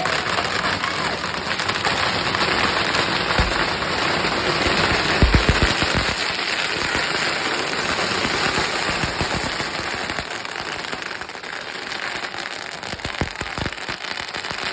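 Strings of firecrackers going off in a rapid, continuous crackle, with a few louder bangs about three and a half and five seconds in. The crackle thins out near the end.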